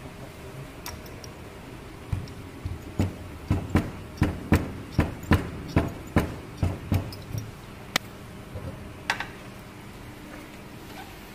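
A heavy rubber-covered hand roller is rolled back and forth over washi tape on a steel test panel, making a run of low thumps and clicks about two a second for several seconds. Two single clicks follow.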